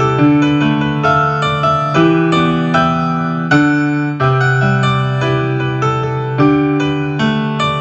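Digital keyboard played with both hands in a piano voice: held low bass notes lasting a second or two under chords and a melody line, with new notes struck several times a second.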